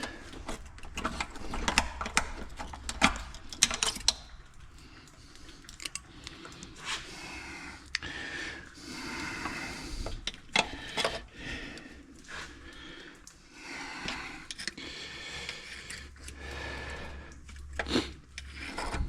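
Hand tools clinking, knocking and scraping on metal parts inside a Minneapolis-Moline ZA engine's crankcase as the main thrust-bearing keeper is worked loose, in irregular small clicks with scraping between them.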